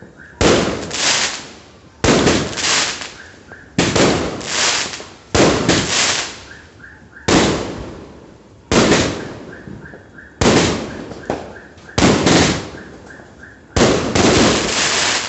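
Tiger Fireworks 'Auspicious' 16-shot large-caliber aerial cake firing shot after shot, about one every one and a half to two seconds. Each sharp bang is followed by a fading crackle as the shell bursts overhead.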